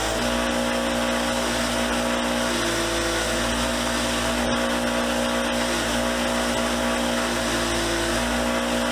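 Power-driven wire wheel running steadily while small steel screwdriver bits are held against it to strip the rust: an even whirring hiss over a constant motor hum.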